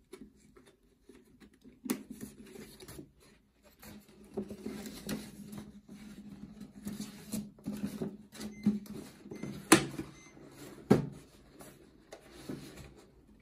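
Hands handling an origami paper lamp shade: irregular rustling and crinkling of paper with small clicks, and sharp knocks about two, ten and eleven seconds in, the one near ten seconds the loudest.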